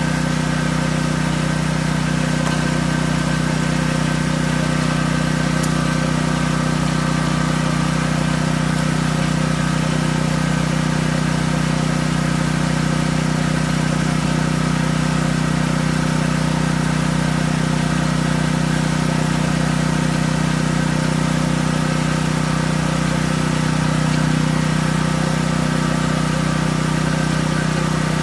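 Portable gasoline generator engine running steadily at a constant speed, with an even, unchanging hum.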